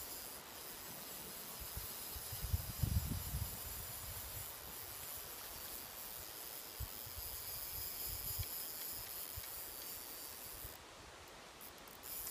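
Quiet riverside ambience: a steady hiss of river water and open air, with a few low rumbles on the microphone about two to three seconds in.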